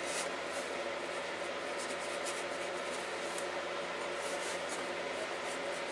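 Faint, irregular scratchy strokes of a synthetic watercolor brush dabbing paint on paper and in the palette, over a steady background hum.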